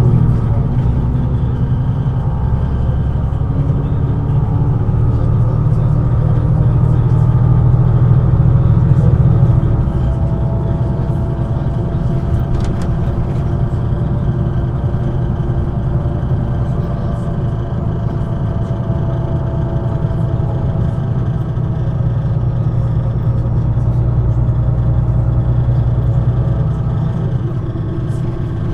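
MAN NG 313 articulated bus's six-cylinder diesel engine running while under way, its note rising slightly under load, then dropping back a little about ten seconds in and running on steadily.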